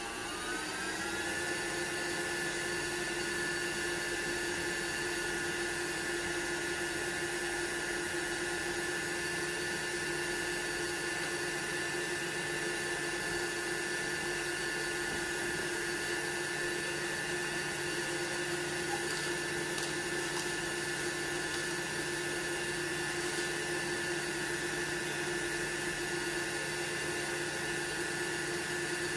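Motor of a 1980s Oster Regency Kitchen Center stand mixer, rising in pitch over the first second or so as its speed dial is turned up, then running steadily at one pitch while the beaters mash potatoes in a glass bowl.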